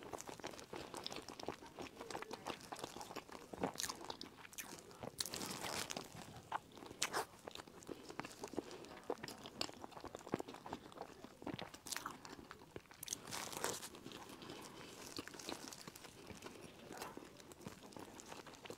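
Biting and chewing crunchy sesame-crusted buns close to the microphone: irregular crisp crunches, several sharp ones standing out, with quieter chewing between.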